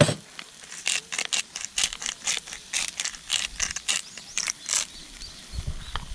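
Charcoal barbecue crackling and popping: irregular sharp pops, several a second, with a loud click at the very start and a low rumble near the end.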